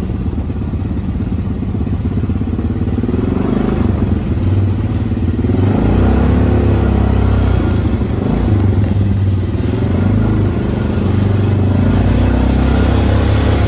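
Off-road vehicle engine running steadily while driving a rough trail, heard from on board. It pulls harder and gets louder about five and a half seconds in.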